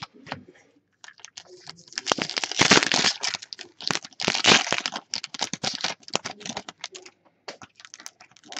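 Foil wrapper of a hockey card pack crinkling and tearing as it is opened by hand, a dense run of crackles that is loudest about two and a half and four and a half seconds in.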